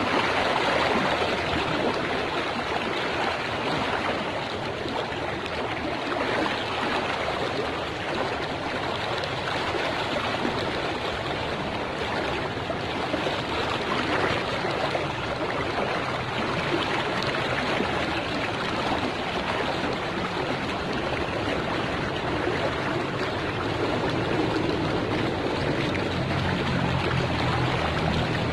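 Swift river current rushing steadily, the river running high and fast after recent flooding. A low hum comes in near the end.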